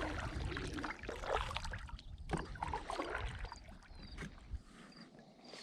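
Water sloshing and irregular light knocks on a fishing kayak as it is handled on the water, fading toward the end.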